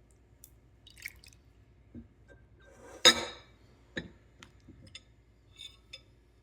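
Light clinks and knocks of glassware and dishes being handled, with one louder sharp clink about three seconds in that rings briefly, and a knock a second later.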